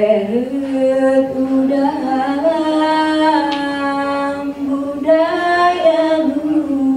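Unaccompanied singing of a Saman dance song: a slow melody of long held notes with gentle steps in pitch, sung without instruments.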